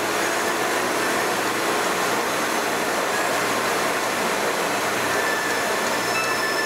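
Steady road and tyre noise inside a moving car's cabin, with the hiss of tyres on a wet road and a faint low hum underneath.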